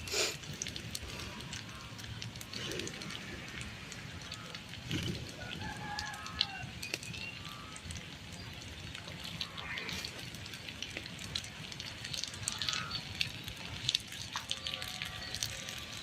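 Wood cooking fire crackling, with many small sharp pops scattered throughout.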